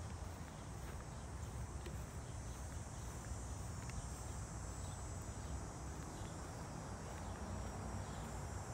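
Insects trilling steadily in one high, unbroken band, the late-summer daytime insect chorus of a park, over a low rumble.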